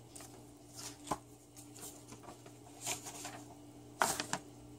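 A printed sheet of paper being picked up and handled, giving a few short rustles and crinkles, the loudest about four seconds in. A faint steady hum sits underneath.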